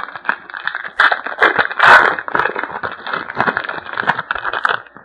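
Foil wrapper of a trading-card pack crinkling and tearing as it is opened, a dense run of crackles, loudest about two seconds in, stopping just before the end.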